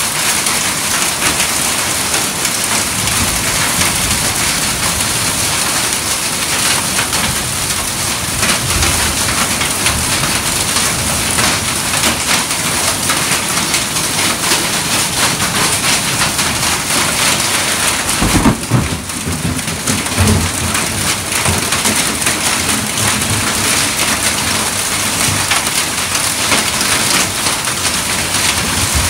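Heavy rain pouring down steadily in a thunderstorm, with a short, loud low rumble of thunder about two-thirds of the way through.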